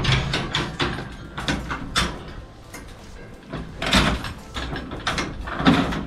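Metal clanks and rattles from a Lakeland steel sheep handling system as its gates and chute are worked, irregular knocks, the loudest about four seconds in and again near the end.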